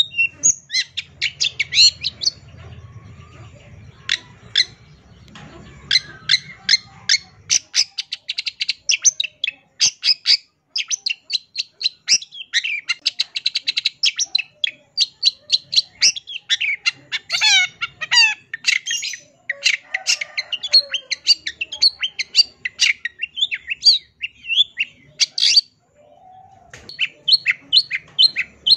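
Long-tailed shrike (cendet) singing a fast, varied, chattering song of quick chirps and rapid note runs, full of phrases mimicked from other birds. The song breaks off briefly about three seconds before the end, then resumes.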